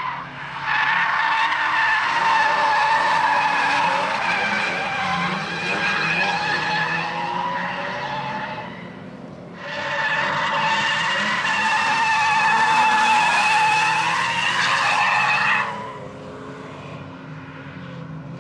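BMW E36 328 drifting: its tyres squeal through two long slides, the first lasting about eight seconds, the second starting about ten seconds in and cutting off after about six seconds, over the engine running hard. Near the end the squeal stops and only the engine is heard, quieter.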